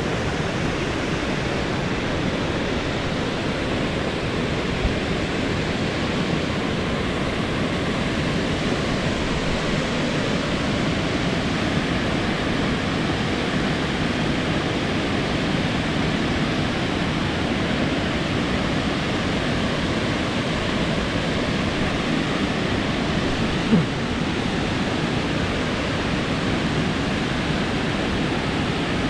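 Steady rush of flowing river water, with one short knock near the end.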